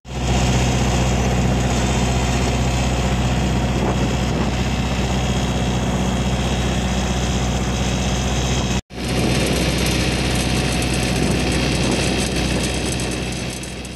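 Boat engine running steadily at a constant pitch, breaking off for an instant about nine seconds in and picking up again.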